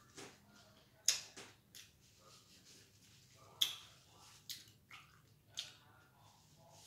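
Paper napkin crinkling as it is folded and squeezed by hand: a scatter of short, sharp rustles, several in a row.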